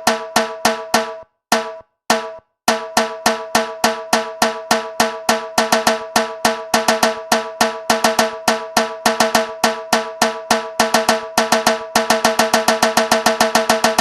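DJ sound-check track: a pitched electronic drum hit repeated in a steady beat of about three to four a second. It drops out twice briefly near the start, then speeds up near the end into a roll.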